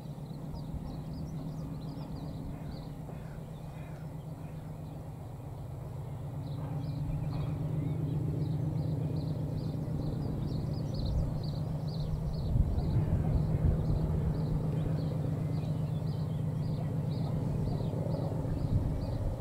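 Distant Class 50 diesel locomotive, with its English Electric 16-cylinder engine working hard on the climb, approaching unseen. It is a steady low drone that grows louder about six seconds in.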